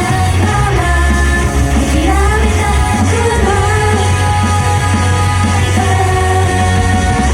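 Upbeat pop-rock idol song played loud over a live venue's sound system, with singing in long held notes over a steady bass and beat.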